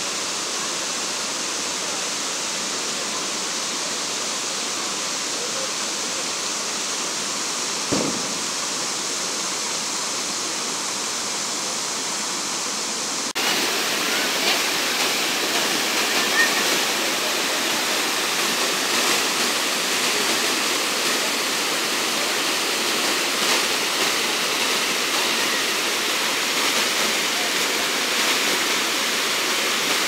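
Water pouring steadily over a tiered stone cascade into a shallow pool, a continuous rush and splash. A single short thump comes about a quarter of the way in. A little before the middle the rush turns suddenly louder and brighter and stays that way.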